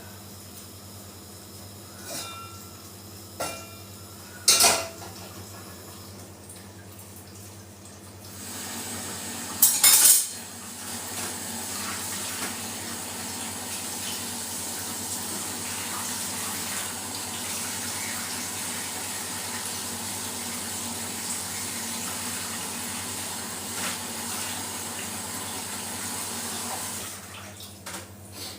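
Kitchen utensils clinking in a sink a few times, with a loud clatter about ten seconds in. Then a kitchen tap runs steadily into the sink while the meat is rinsed under it, and the water shuts off near the end.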